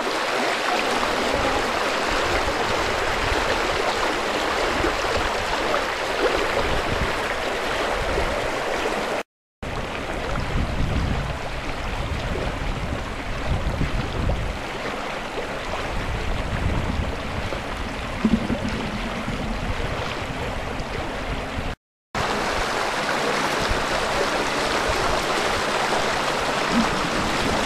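Floodwater rushing steadily through a breach and over a low earthen paddy dike, a continuous splashing rush that drops out twice for a moment.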